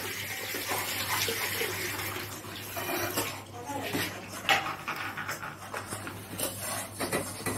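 Metal spatula stirring and scraping jaggery syrup cooking in a small aluminium kadai on a gas burner, with a steady bubbling hiss and occasional clinks of the spatula against the pan.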